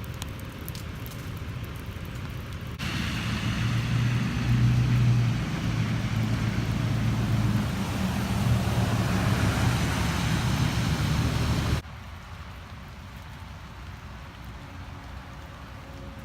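Vehicle road noise with a steady low engine hum, broken into three segments by abrupt cuts about three seconds in and near twelve seconds. The middle segment is the loudest.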